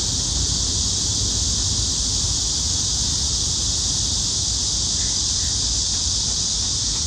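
A loud, steady chorus of cicadas: an even, high-pitched drone with a low rumble underneath.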